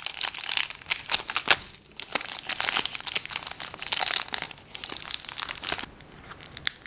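A small toy's wrapper being crinkled and torn open by hand: a dense run of crackling with one sharper snap about a second and a half in.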